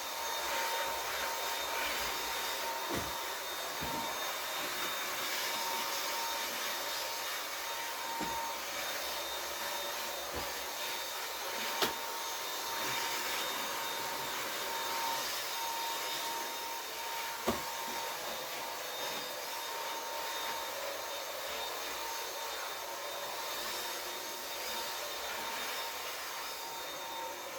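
A Dyson vacuum cleaner running steadily with a high, hissing whine, vacuuming a room. Twice, about halfway through, there is a sharp knock.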